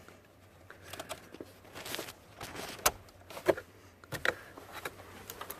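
Scattered clicks, knocks and rustles of hands working inside a car, the sharpest knock about three seconds in.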